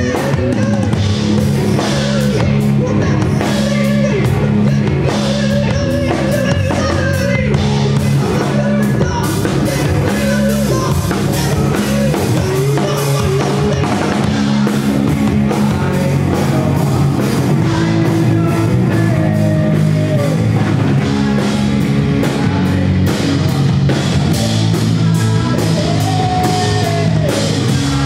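Rock band playing live and loud: drum kit, electric guitar and bass guitar, with a singer's vocals over them.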